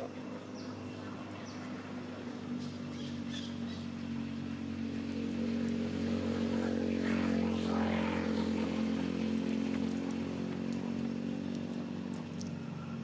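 A motor vehicle's engine running steadily off screen, growing louder to a peak about two-thirds of the way through and then fading, as it passes by.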